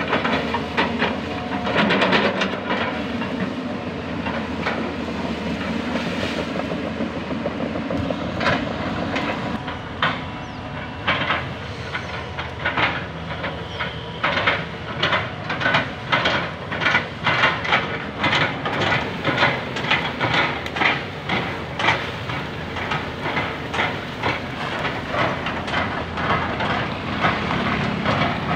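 Doosan hydraulic excavators running, with a rapid series of sharp knocks, about two a second, as an excavator bucket chops felled oil palm trunks into chips. The knocking comes in bursts and is most regular in the middle of the stretch.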